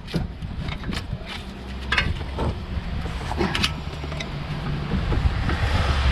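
Scattered metallic clicks and knocks of a front brake caliper being wiggled back and forth and worked off its disc, over a steady low rumble.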